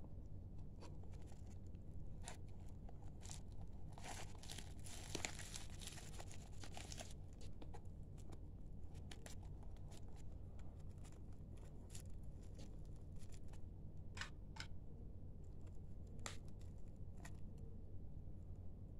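Plastic courier mailer crinkling and rustling faintly as it is handled, with a longer stretch of crinkling about four seconds in and scattered light crackles after.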